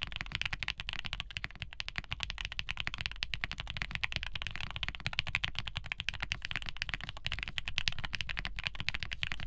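Fast, continuous typing on a custom 65% mechanical keyboard fitted with lubed JWK Ms Piggy (Thic Thock ALS) linear switches, an aluminium plate and ABS keycaps: a dense run of deep, muted clacks.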